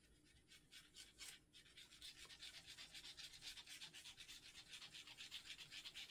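Near silence, then a faint, quick, even panting that starts about two seconds in and keeps going.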